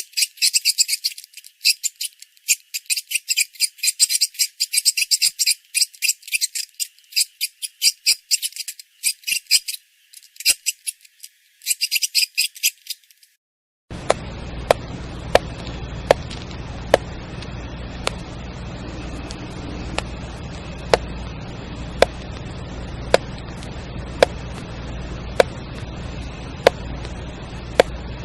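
Rapid high-pitched chirping or rattling in quick pulses with short breaks for about thirteen seconds. It then stops and gives way to a steady low hum with a sharp click about once a second.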